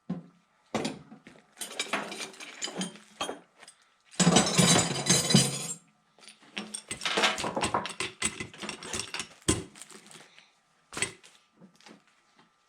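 Hand tools clattering and clinking as they are tossed into the top tray of a toolbox, in bursts of rattling metal with a thickest flurry about four to five seconds in and a few lone clicks near the end.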